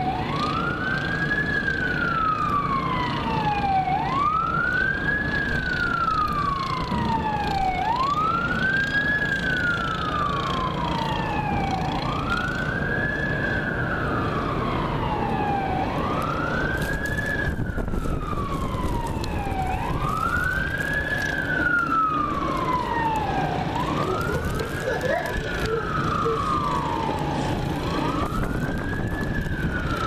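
Fire engine siren wailing in a steady cycle about every four seconds: each wail rises quickly, then falls slowly. A second overlapping wail briefly joins about three-quarters of the way through, over a steady low hum.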